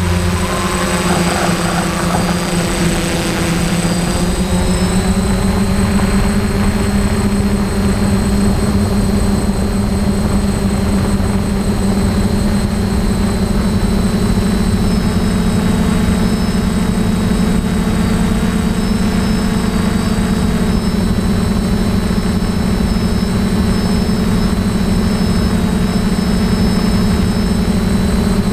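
DJI F550 hexacopter's six electric motors and propellers running in flight, a steady drone with a high motor whine over a low rumble, heard close up from the camera on the airframe. The pitch rises a little in the first few seconds, then holds.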